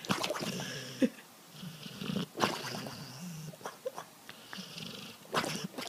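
A sleeping dog making soft noises in its sleep: a string of short, irregular low sounds with a few faint clicks.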